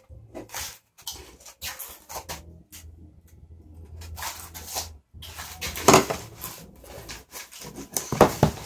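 Irregular crinkling and rustling of a foil snack bag as a hand reaches in for chips, mixed with paper or pages being handled. The loudest crackles come about six seconds in and again near the end.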